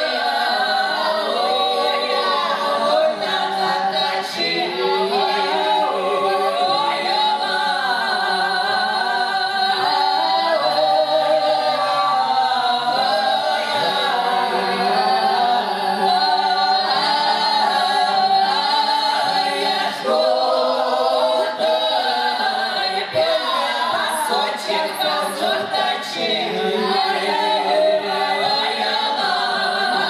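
A small mixed folk ensemble of women and a man singing a Cossack song a cappella, many voices weaving separate parts around one another.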